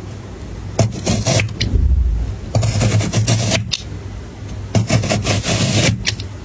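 Crisp crunching and scraping of frozen fruit, in several rough stretches about a second long with short pauses between.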